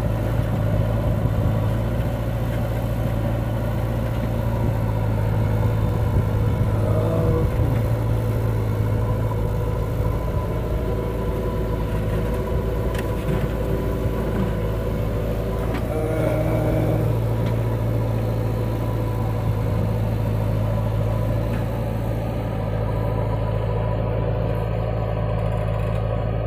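Diesel engine of a JCB 3DX backhoe loader running steadily while its digging arm works, with the engine note rising briefly a couple of times under hydraulic load.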